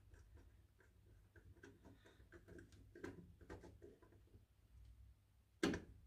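Faint scattered small clicks and ticks of hands working a wire into a screw-terminal connector block, with one louder short knock near the end.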